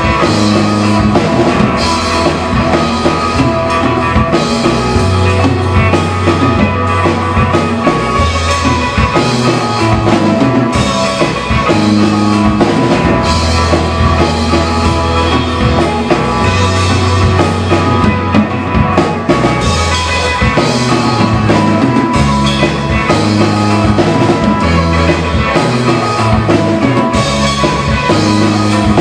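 Rock band playing loud on electric guitar, electric bass and drum kit, with held bass notes that change every second or two under steady cymbals.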